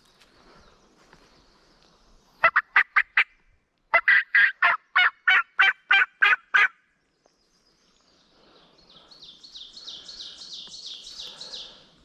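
A turkey call worked by a hunter, sounding loud series of hen-turkey yelps: a short run of about five, then after a brief pause a longer run of about eleven. Near the end a small bird answers with a softer run of high, quickly repeated notes.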